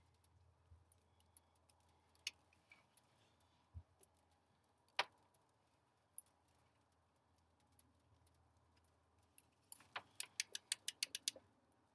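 Scattered light metallic clicks and rattles, like keys or small parts being handled, growing into a quick flurry of clicks near the end, over a faint steady low hum.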